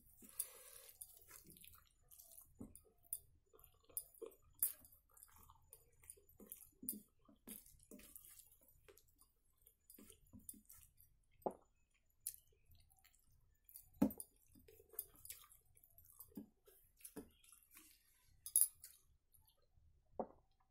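Close-up eating sounds: chewing and wet smacking of the mouth, and fingers squishing and mixing rice against a steel plate, with scattered small clicks, a few of them sharper.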